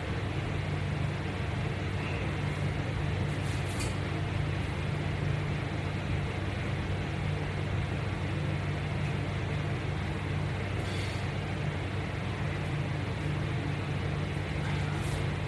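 A steady low hum over an even hiss, unchanging throughout, with two faint brief rustles about three and a half and eleven seconds in.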